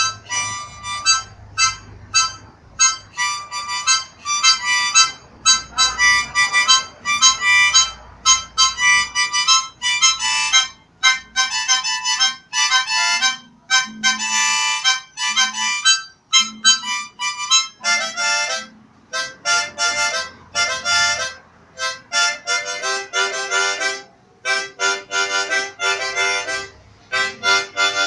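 Harmonica played solo by a learner: a tune of short separate notes with brief breaks between them, dropping to lower notes about two-thirds of the way through.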